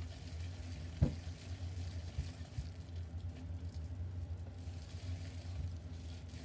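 Hand kneading minced chicken thigh meat in a glass bowl: soft wet squelching of the meat paste, with a sharp knock about a second in and a few lighter ones, over a steady low hum.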